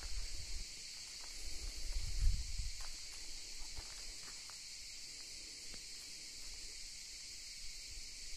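A steady, high-pitched chorus of insects shrilling without a break. Low rumbling on the microphone in the first three seconds is the loudest part, with a few faint ticks a little later.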